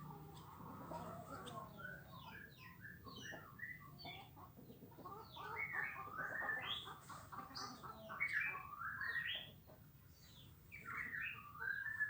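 Many small birds chirping and twittering in quick, overlapping clusters of short notes, with a domestic hen clucking in the first couple of seconds.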